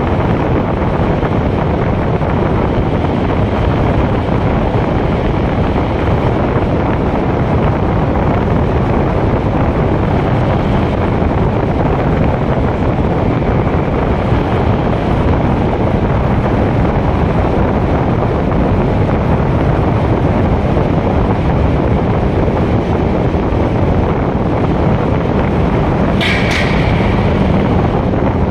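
Steady rush of car driving noise and wind buffeting the phone's microphone as the car moves through a road tunnel. Near the end a brief, sharper, higher-pitched sound cuts through.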